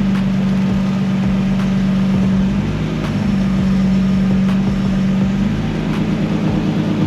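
Nissan R32 Skyline GT-R's twin-turbo RB26 inline-six running steadily at idle, its pitch shifting slightly a couple of times.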